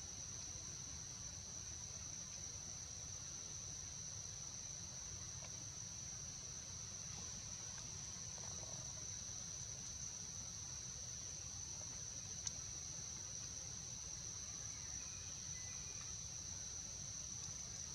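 Steady, high-pitched insect chorus droning without a break, over a faint low rumble, with a single sharp click about twelve seconds in.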